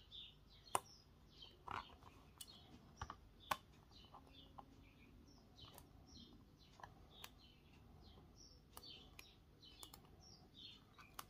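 Faint, irregular clicks and ticks of fine metal tweezers picking small cut pieces of vinyl off a cutting mat (weeding the vinyl), with small birds chirping faintly in the background.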